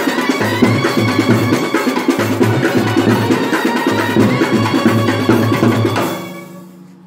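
Kerala bandset, a brass band with drums and percussion, playing a song over a pulsing low drum beat. The music dies away about six seconds in.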